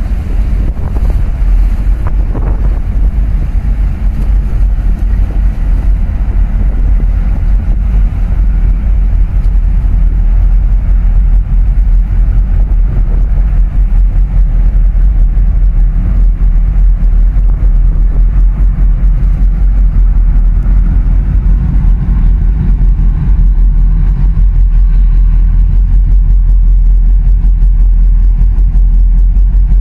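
Steady low rumble of a boat engine running, mixed with wind buffeting the microphone and the rush of choppy water.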